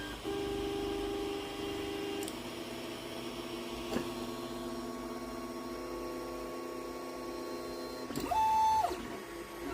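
3D printer running: its stepper motors give off steady tones whose pitch changes every couple of seconds as the print head moves. Near the end a faster move rises in pitch, holds briefly and falls back, louder than the rest.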